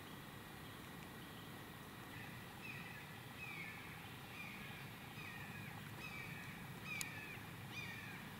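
A bird calling a run of short falling notes, about one and a half a second, starting about two seconds in. A sharp click is heard about seven seconds in.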